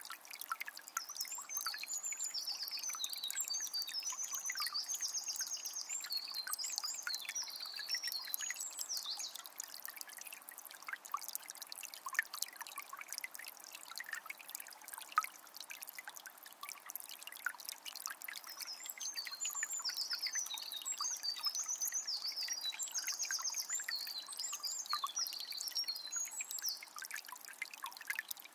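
Calm forest river trickling and pouring steadily, with a songbird singing a long, high, varied phrase of chirps and trills twice, the second about ten seconds after the first.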